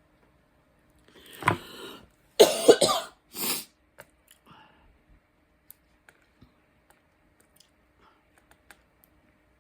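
A person clearing their throat and coughing: three harsh bursts in quick succession about a second in, the middle one loudest, followed by faint small clicks.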